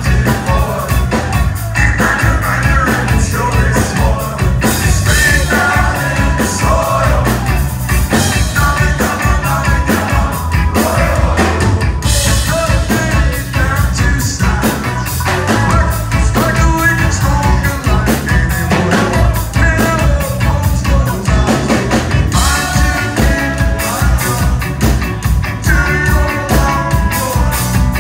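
Ska-punk band playing live: a horn section of saxophones and trombone over drums, bass and electric guitar, with a singer.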